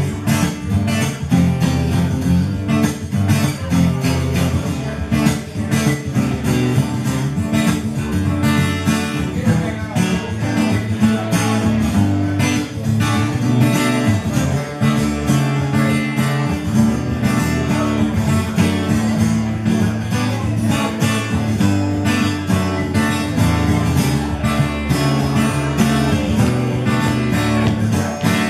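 Solo acoustic guitar strummed steadily through an instrumental break in a song, with no singing.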